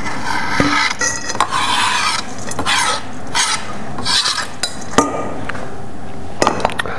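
Chef's knife scraping chopped parsley across a cutting board into a stainless steel bowl: several rasping strokes, then a few sharp clicks of metal on the board and bowl.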